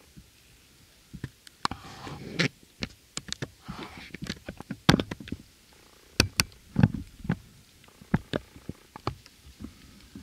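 Footsteps crunching and rustling through dry fallen leaves: irregular crunches and sharp crackles with short pauses between them.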